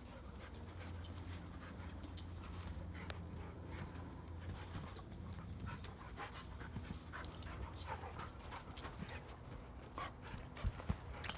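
Dogs panting and scuffling in rough play on a trampoline, with scattered light taps and clicks, over a steady low hum.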